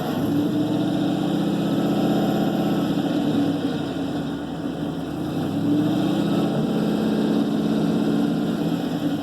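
Ford 427 big-block V8 running through sidepipes, a steady, loud, lumpy exhaust note that swells a little and eases back twice.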